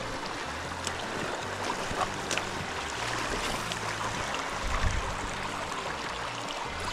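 River water rushing steadily over a stony bed, with a few faint clicks.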